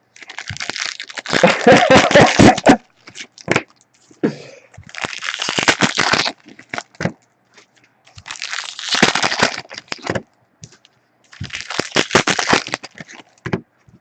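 Foil trading-card pack wrappers crinkling and cards being handled, in four bursts of crackly rustling with sharp clicks.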